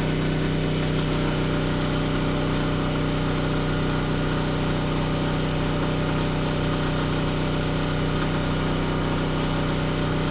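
Champion 4000-watt open-frame digital hybrid inverter generator running steadily under load from an RV air conditioner and toaster, a constant even engine hum.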